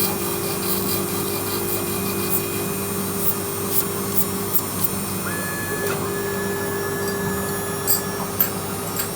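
Small CNC milling machine running with a steady hum. A higher steady whine comes in about five seconds in and lasts about three seconds, over scattered light ticks.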